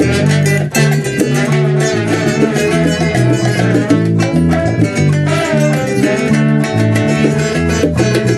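Instrumental salsa music: acoustic guitar over a walking bass line with quick percussion strokes, and no singing.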